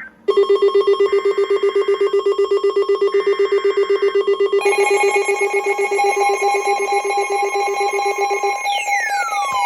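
Weather-alert receivers sounding their alarm for an incoming warning. A loud, rapidly pulsing two-pitch alarm tone of about six pulses a second starts a quarter second in, with fainter one-second bursts of a higher tone behind it, typical of the alert's data header. A second steady alarm tone joins about halfway through, and falling sweeping tones begin near the end.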